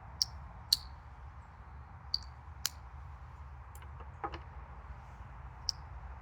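Several sharp metallic clicks at irregular intervals, each with a short high ring: pocketknife blades snapping on their springs as the knives are handled. A short higher sound comes about four seconds in.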